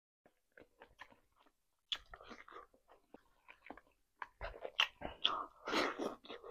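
Close-miked chewing of rotisserie chicken, with wet mouth smacks and clicks. The sounds are sparse at first and get denser and louder in the last couple of seconds.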